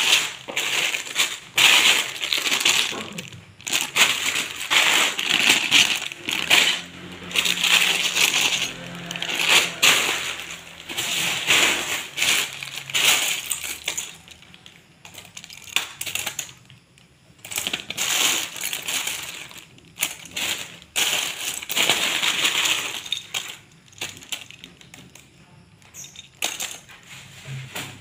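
Loose plastic LEGO bricks and minifigures clattering and clinking as a hand rummages through them, with plastic bags rustling. The clatter comes in irregular surges and grows quieter and sparser in the second half.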